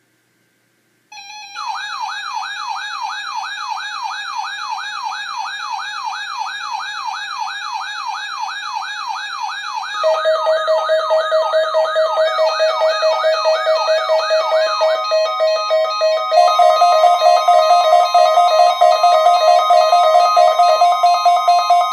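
Electronic emergency warning alarm tone of a weather radio test broadcast. A fast-warbling, siren-like tone starts about a second in. About ten seconds in, a louder, rapidly pulsing beep joins it; the warble fades out by about fifteen seconds, leaving the pulsing beeps, which get louder again shortly after.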